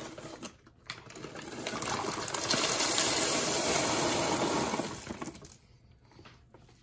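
Dried tiger nuts poured from a plastic bag into a plastic colander standing in water: a dense pattering rattle that builds about a second in, runs for about four seconds and tails off.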